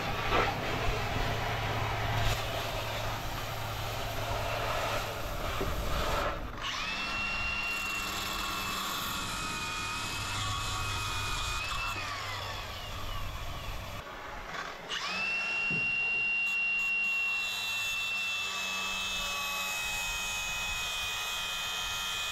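Cordless compact cut-off tool with a small abrasive wheel cutting rusted truck steel. After a rougher, noisier first few seconds comes a steady high whine, which winds down about halfway through, then starts again and runs on.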